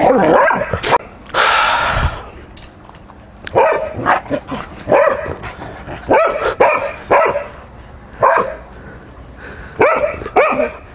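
A dog barking repeatedly in short ones and twos, with gaps of up to a second or more between them.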